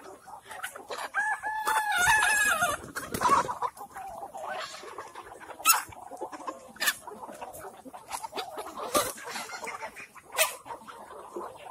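Kadaknath chickens clucking, with a rooster crowing once about a second in and scattered sharp clicks after.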